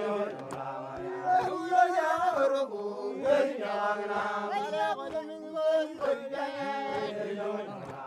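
A group of people singing a traditional chant together, several voices at different pitches overlapping and holding notes.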